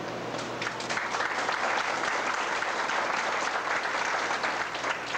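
A roomful of people applauding, a dense patter of clapping that swells about a second in and then holds steady.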